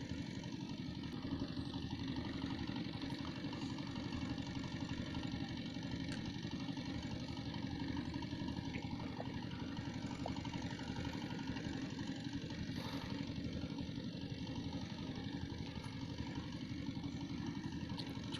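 A small engine running steadily at an even idle, with a fast, regular pulse.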